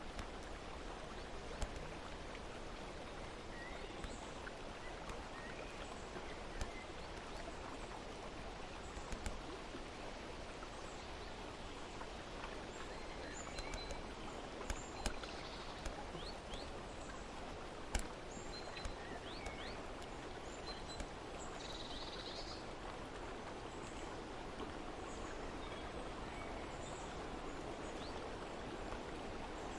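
Steady outdoor ambience of running water, with faint bird chirps scattered through it and a few sharp clicks, the loudest about eighteen seconds in.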